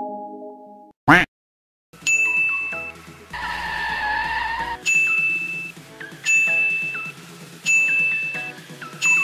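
Background music: a fading chord and a short rising swoosh about a second in, then an upbeat electronic track with a bell-like chime repeating about every second and a half. A screechy sound lasts about a second and a half near the middle.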